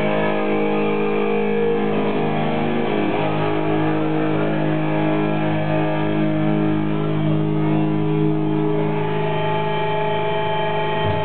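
Live heavy metal band holding long, sustained electric guitar and bass chords, with a change of chord about three seconds in and another near nine seconds.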